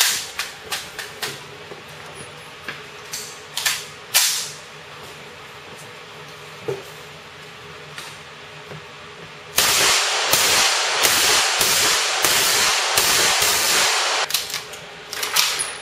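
Gunfire on a range. There are several separate shots in the first four seconds. About halfway through comes a loud, unbroken string of full-automatic fire lasting about five seconds.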